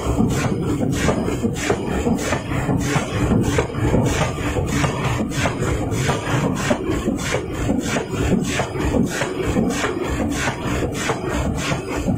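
A 2000 kg pneumatic forging hammer running, its ram striking and upsetting a red-hot steel ring blank in a steady, fast rhythm of repeated rasping strokes.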